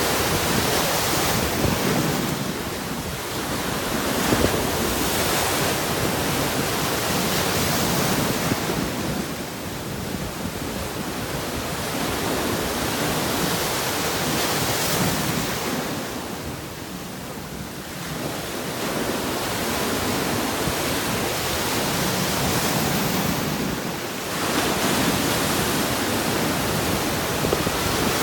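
Sea waves breaking on rocks: a continuous rush of surf that surges and eases off in lulls about every seven seconds.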